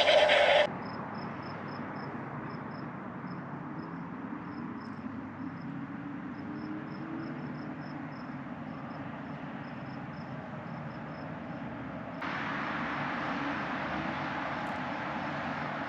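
Crickets chirping in a steady, even rhythm over a low hum of distant city traffic. About twelve seconds in the traffic noise steps up louder. Music cuts off just under a second in.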